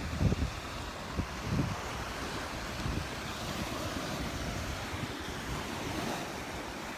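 Gulf of Mexico surf washing onto the beach, with wind buffeting the microphone in low gusts, strongest in the first couple of seconds.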